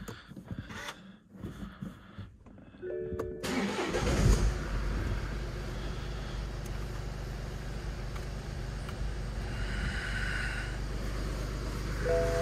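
BMW 1 Series engine started about three seconds in: a brief crank and the engine catching, then a steady idle. It runs to push air bubbles out of the freshly topped-up cooling system. Faint clicks come before the start.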